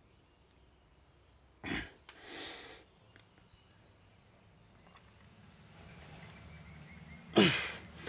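A man's forceful breaths from the effort of a bodyweight exercise. There is a sharp burst of breath about a second and a half in, then a softer, breathier exhale. Near the end comes a louder exhale with a short grunt that falls in pitch.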